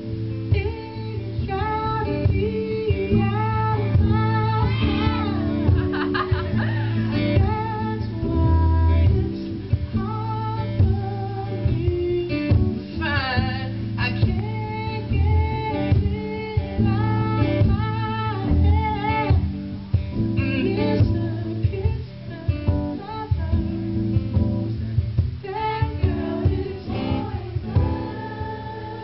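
Live music: a man singing with gliding vocal runs over acoustic guitar accompaniment.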